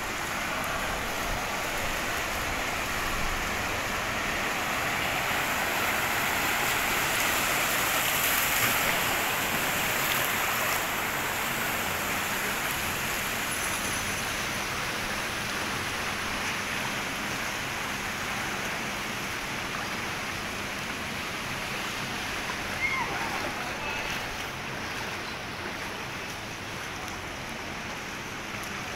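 Floodwater flowing and washing across a flooded street, a steady rushing noise. A brief sharp sound stands out about 23 seconds in.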